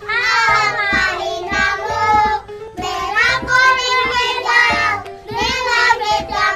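A group of young children singing a song together, in three sung phrases with short breaks between them.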